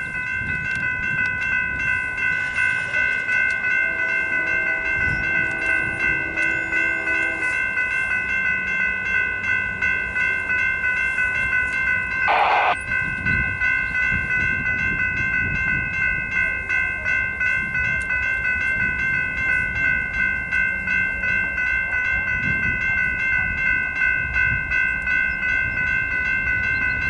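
Railroad crossing's electronic warning bell ringing in steady, evenly repeated dings, the sign that the crossing is activated for an approaching train. A train horn sounds faintly in the distance for about three seconds around four seconds in, and there is a brief sharp burst about halfway through.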